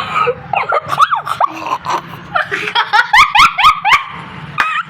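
Children laughing, with a quick run of high-pitched laughs between about two and a half and four seconds in.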